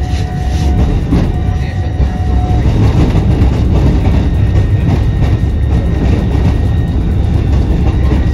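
Tram rolling along its rails with a steady low rumble. A held whine stops about two and a half seconds in.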